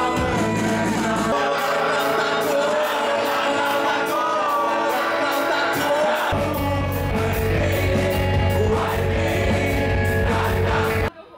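A live rock band plays a song with singing; the drums keep a steady beat, and the bass and low end come in heavier about six seconds in. The music cuts off abruptly near the end.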